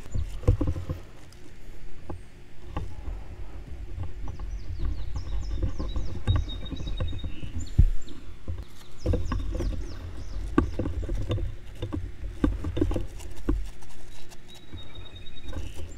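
Gloved hands handling thin drip irrigation tubing and fitting drip emitter stakes onto it close to the microphone: irregular clicks, knocks and rustles over a low rumble. Faint bird chirps now and then.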